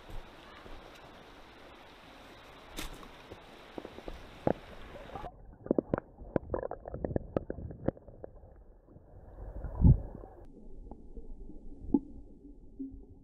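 Steady water hiss that suddenly turns muffled after about five seconds, then irregular gurgling and knocking with one heavy low thump near the ten-second mark.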